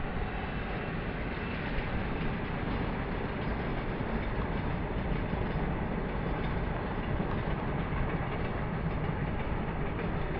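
Track-maintenance train of flat wagons rolling along the line: a steady noise of wheels running on the rails.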